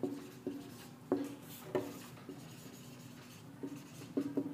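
Marker pen writing on a whiteboard: quiet, irregular taps and short scrapes of the felt tip as letters are formed, about eight strokes.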